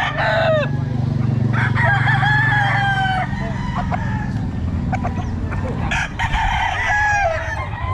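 Roosters crowing: the end of one crow at the start, a full crow about a second and a half in, and another near the end. A steady low drone runs underneath.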